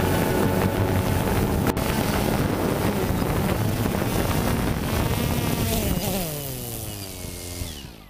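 DJI Phantom 2 quadcopter's electric motors and propellers buzzing close to the on-board camera, with wind on the microphone. From about five seconds in the motors wind down in a falling whine as it sets down and the motors stop.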